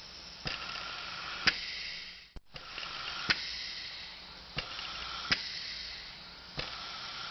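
Ambulance respirator cycling: a hiss of air that swells and fades about every two seconds, each cycle marked by sharp valve clicks.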